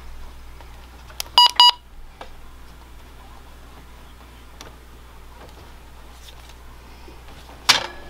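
Two short electronic beeps from a weather alert radio, a quarter second apart, with a low steady hum underneath. A single sharp knock comes near the end.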